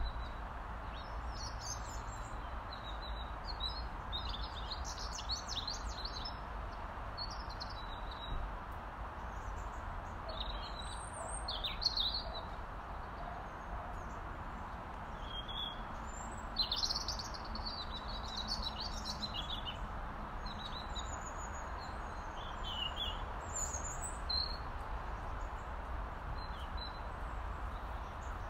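Robin calling: short high-pitched phrases of quick, thin notes, coming every second or two with pauses between them, over a steady background hiss and low hum.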